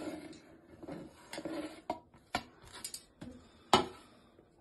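A ceramic plate clinks and knocks against a steel mixer-grinder jar as chopped ingredients are scraped off it by hand, with about five separate sharp taps.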